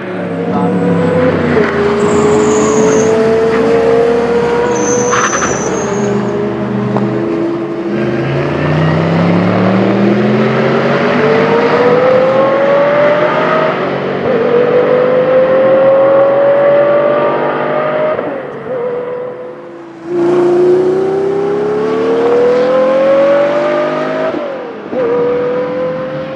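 Montecarlo BRC GT race car's 6-litre Audi W12 engine, running on LPG, accelerating hard through the gears: the pitch climbs in each gear and drops sharply at each upshift, several times over.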